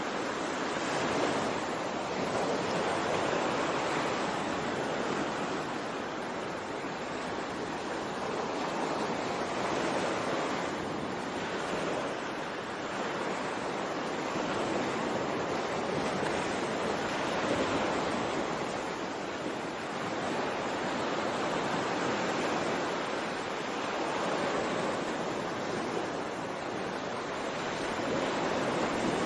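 Ocean waves washing in: a continuous rush of surf that swells and eases every few seconds.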